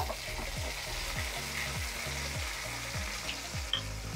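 Chopped shallots and dried red chillies frying in hot oil in a steel kadai for a tempering: a steady sizzle, with a steel spoon stirring through the pan.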